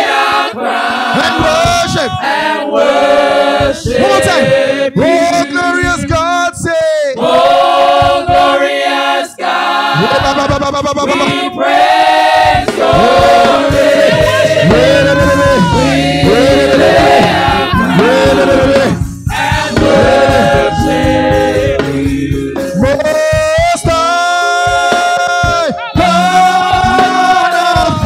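Gospel praise-and-worship singing: a choir or group of voices singing a worship song with musical accompaniment.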